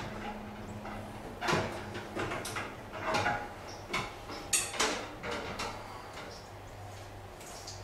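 Irregular metal knocks and scrapes from an electric garage heater's sheet-metal housing being handled and tilted on its ceiling mounting bracket, over a low steady hum.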